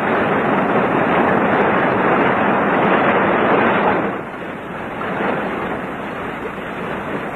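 Steady rushing noise, louder for about the first four seconds, then dropping to a lower level.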